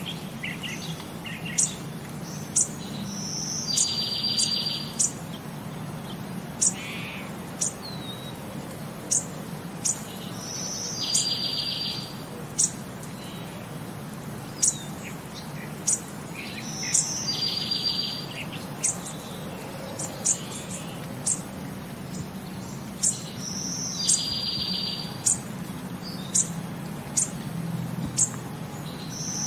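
Birds chirping: sharp high chirps and a buzzy trill about a second long that comes back every six or seven seconds in the same pattern, over a faint steady hum.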